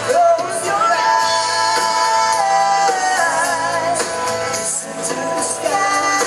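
Live band playing: singing over electric guitar, bass and drums. About a second in, a sung note is held for nearly two seconds.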